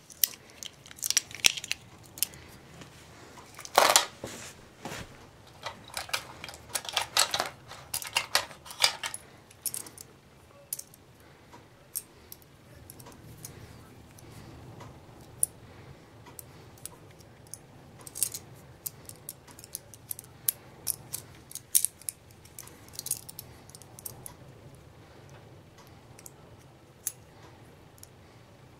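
Small metal items being handled: a keyring and chain jingling, and small tools clicking and clinking against one another in scattered bursts. The handling is busiest in the first ten seconds and sparser after.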